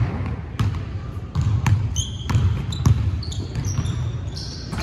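Basketball bouncing on a hardwood gym floor, a run of dribbles at about two a second, with short high sneaker squeaks on the court in the second half.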